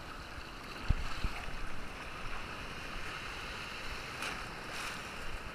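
Shallow sea surf washing and foaming close to the microphone, with wind noise on it. Two dull thumps about a second in.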